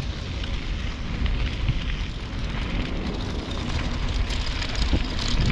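Wind rushing over the microphone of a moving bicycle, a steady low rumble and hiss, with the bike's tyre and road noise underneath.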